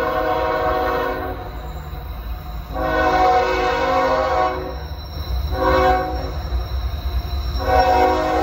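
CSX freight locomotive's multi-chime air horn blowing the grade-crossing signal: a long blast ending about a second in, a second long blast, a short one, and the final long blast beginning near the end.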